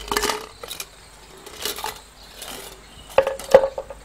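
Piggy bank shaken upside down, with small objects rattling inside and a few clicks and knocks as gum nuts, a button and a bottle top drop out onto the floor. The loudest knocks come about three to three and a half seconds in.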